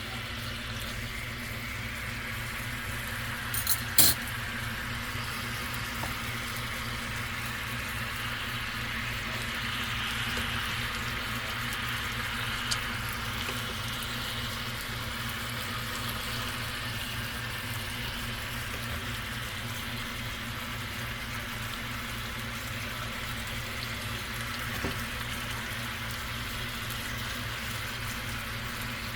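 Achuete-glazed chicken sizzling as it cooks: a steady frying hiss, with a sharp clack about four seconds in.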